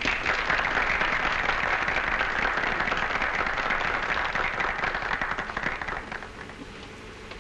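Audience applause, a dense clapping of many hands that dies away about six seconds in.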